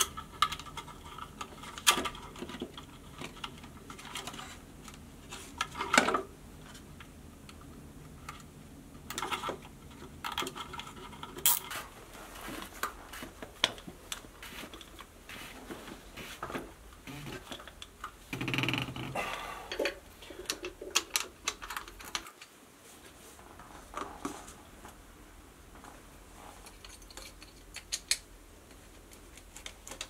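Scattered clicks, taps and knocks of plastic and metal parts as a submersible sump pump is handled and put back together by hand, with a scrape lasting about a second roughly two-thirds of the way in.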